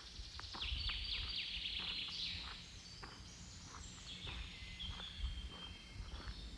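Songbirds chirping and trilling in a forest, with the sharpest run of rapid chirps about a second in. Footsteps and a low rumble sit underneath.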